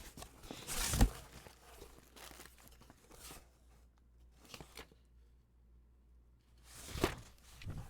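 Shipping packaging being torn and opened by hand: tearing, crinkling and crunching in short bursts, loudest about a second in and again near the end, with a quiet stretch between.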